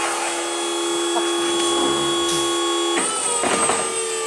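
Genie Z-45/25J articulating boom lift's motor running with a steady whine, which shifts to a different pitch about three seconds in.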